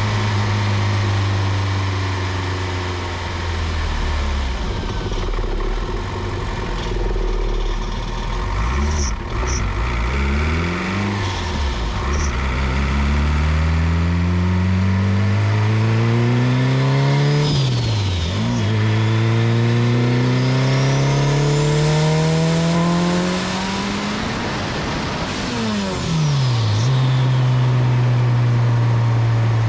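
Turbocharged Honda B16 four-cylinder with a Garrett GTX3582 turbo pulling hard through the gears. The engine note climbs with the revs and drops sharply at each gear change, about three times. A turbo whistle climbs as the turbo spools and falls away near the end, when the engine settles back to a steady note.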